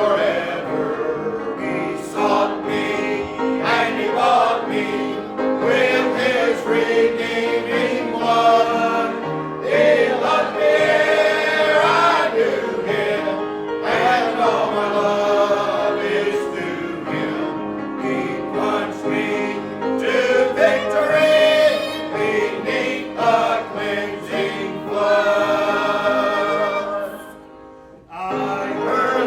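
Church congregation singing a gospel hymn together. The singing breaks off briefly near the end and then picks up again.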